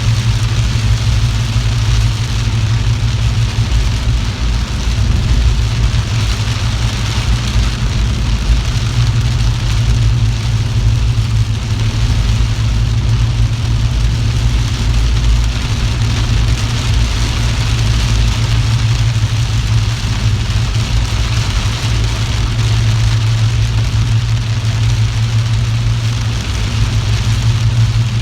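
Car driving in heavy rain: a steady low rumble of engine and road, with a constant hiss of rain and wet tyres over it.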